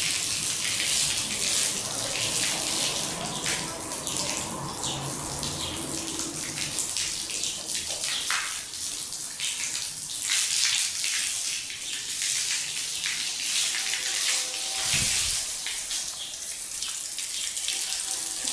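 Thin jet of water from a garden hose, hissing and spattering steadily onto a wet tiled floor. A single low thump about fifteen seconds in.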